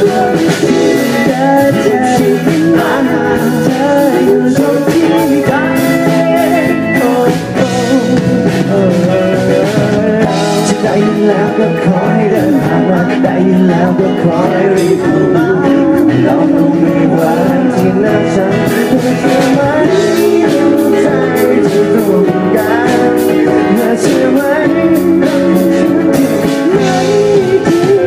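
Live band playing a pop-rock song through a PA system: acoustic guitar, keyboard and drum kit, with singing over it.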